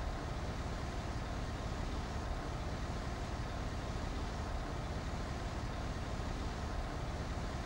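Bus engine idling steadily, a constant low running sound with no change.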